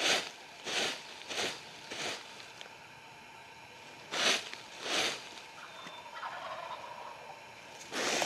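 Dry leaves on the forest floor scratched by hand in short strokes, sets of two to four with pauses between, imitating a turkey scratching and feeding.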